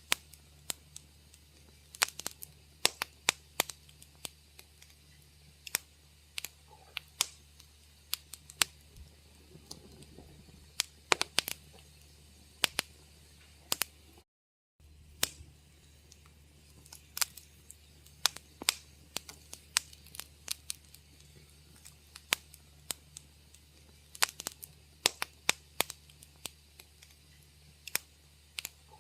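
Wood fire crackling in a fireplace: irregular sharp pops and snaps, several a second at times, over a faint steady low hum. The sound cuts out completely for about half a second midway, then the crackling resumes.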